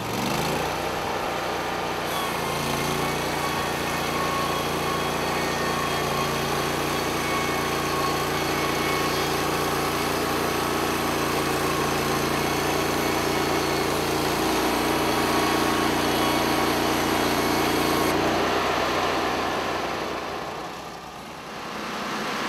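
Portable band sawmill's small engine running steadily at a constant speed, with its sound dropping away briefly near the end.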